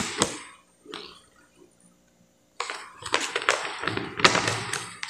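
Paper and plastic packaging rustling and crinkling as it is handled. A short spell comes first, then a pause of about a second, then a longer stretch of dense crackling.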